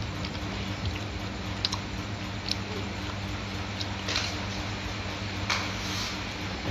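A person chewing food close to the microphone, with about four short crisp clicks from biting. A steady low hum runs underneath.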